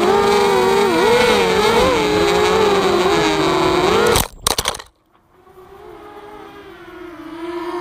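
Walkera Rodeo FPV quadcopter's motors and propellers whining close to the onboard camera, the pitch wavering up and down as it is flown low and fast. About four seconds in it crashes into grass with a short burst of knocks and the loud whine cuts out, leaving a much fainter wavering whine.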